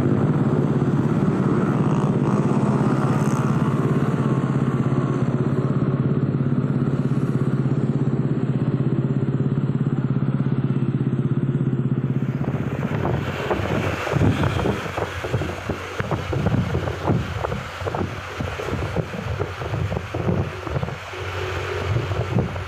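Motorcycle engines idling steadily in traffic. About halfway through, this gives way to gusty wind buffeting on the microphone while riding, with engine noise beneath.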